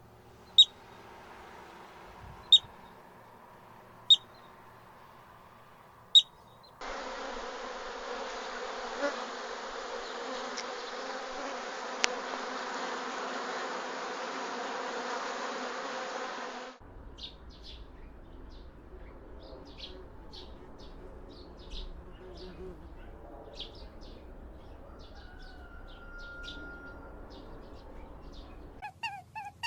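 Four sharp, high single chirps, then a steady buzz of insects that starts and stops abruptly after about ten seconds, then rapid, high chirping.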